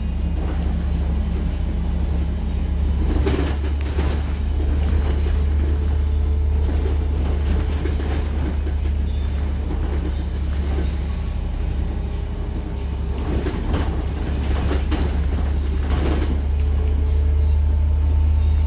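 Interior of a Scania OmniCity city bus on the move: a steady low engine and driveline drone, with knocks and rattles from the body and fittings, a few around three to four seconds in and again around thirteen to sixteen seconds in.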